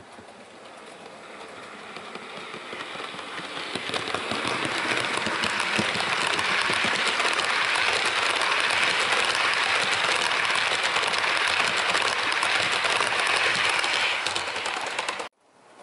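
OO gauge model train, a Bachmann Class 90 locomotive with a rake of Mark 3 coaches, running past on the track with a rumble and a dense patter of clicks from the wheels. It builds as the train approaches, stays loud while the coaches pass, and cuts off suddenly near the end.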